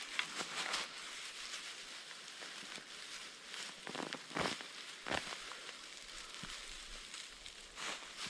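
Rustling of grass and soil with a few soft thumps as sods of turf are laid and pressed onto an earth roof, over a steady high hiss.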